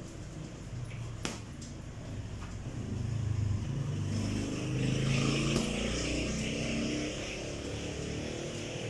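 A single punch thud on a heavy punching bag about a second in. After that a motor vehicle's engine rises and fades, from about three to seven seconds in, and is the loudest sound.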